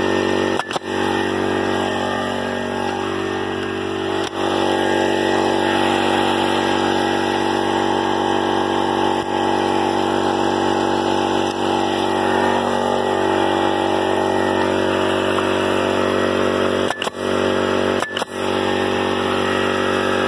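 Air compressor running with a steady drone, while a Bostitch pneumatic nailer fires nails into cedar slats: single sharp shots about a second in and around four seconds in, then two about a second apart near the end.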